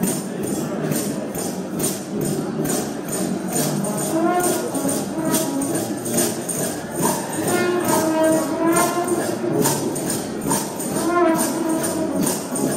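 Gospel shout band music: brass horns play a melody over a steady, evenly spaced tambourine beat, the melody lines coming in more clearly about four seconds in.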